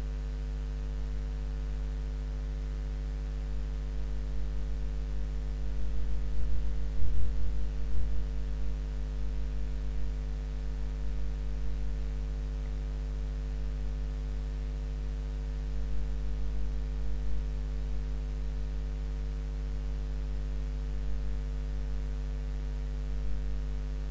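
Steady electrical mains hum with a hiss under it, from the recording chain, with a few soft low thumps about six to eight seconds in.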